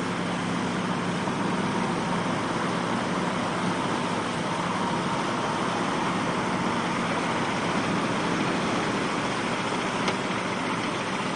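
Heavy truck engine running as the truck drives up out of the surf on a tow cable. A steady rush of surf and wind lies over it.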